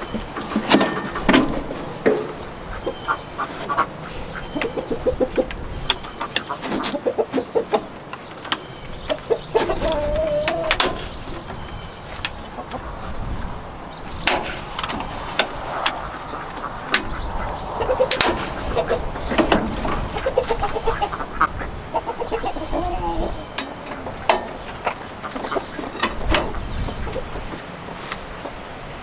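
Farm poultry clucking and calling, with scattered sharp clicks and knocks from hands working in a tractor's engine compartment.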